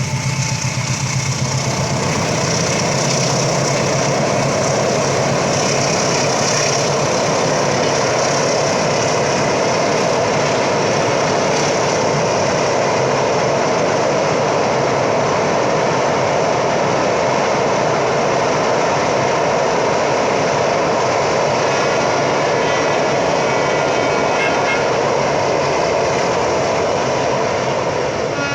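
A train passing close by: a loud, steady rumble and rattle of its wheels on the rails, with faint high tones appearing briefly about three quarters of the way through.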